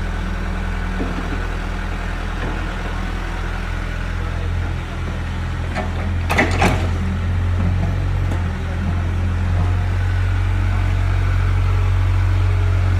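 Excavator's diesel engine running steadily, with a brief knock about six and a half seconds in.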